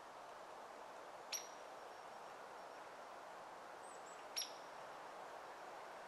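Hairy woodpecker giving two sharp, high single calls about three seconds apart, over a steady background hiss.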